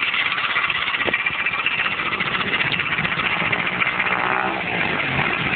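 Small dirt bike engine running steadily.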